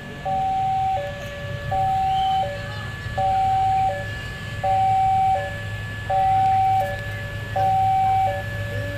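Railway level-crossing warning alarm sounding its repeating two-tone chime, a higher note then a lower note, about once every one and a half seconds. Underneath runs the low steady drone of the approaching diesel railcar train.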